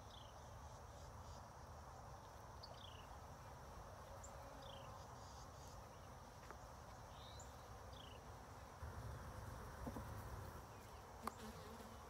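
Honeybees buzzing faintly and steadily around an opened hive, with short high falling chirps every couple of seconds and a single sharp click near the end.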